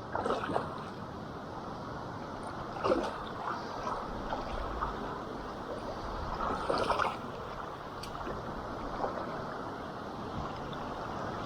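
River water running and gurgling, with a few short splashes about half a second, three seconds and seven seconds in.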